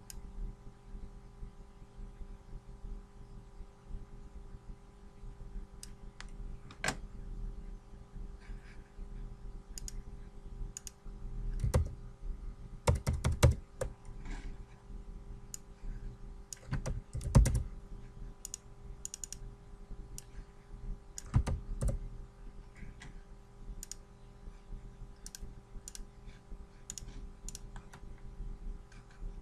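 Computer keyboard keystrokes and clicks at irregular intervals, with a few heavier knocks in the middle, over a faint steady hum.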